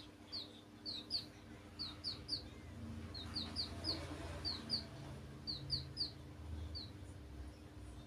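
Domestic chicks peeping: short, high, falling peeps in quick runs of two or three, about twenty in all, stopping about a second before the end, over a low rumble.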